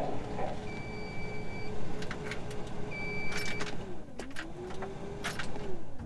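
Massey Ferguson 4345 tractor's ignition switched on without the engine cranking, because the tractor is in gear: a steady electric whine that dips and rises again about four seconds in, two short dashboard warning beeps, and a few clicks from the controls.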